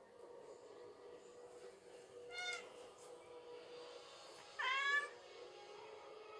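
Domestic cat meowing twice: a short meow about two and a half seconds in, then a longer, louder one near five seconds that rises in pitch at its start. The cat is begging for food.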